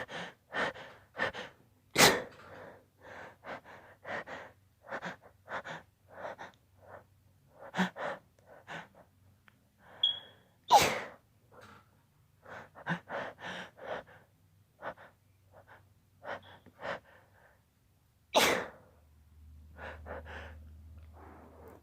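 A woman's held-back sneezes: a long run of quick, hitching gasps as a sneeze builds and is held in, with three loud sneezes breaking through, about two seconds in, around eleven seconds, and around eighteen seconds.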